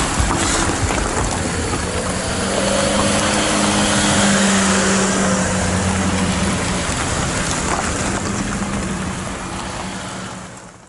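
Fiat Panda 4x4s driving slowly past one after another on a gravel track, engines running with tyre noise on the gravel. A steady engine note builds to its loudest in the middle as a car comes close, then the sound fades out near the end.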